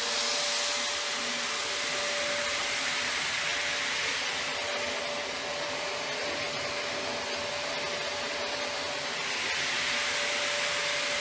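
Running plastic recycling and pelletizing line: a steady rush of air like a blower, with one constant hum tone underneath.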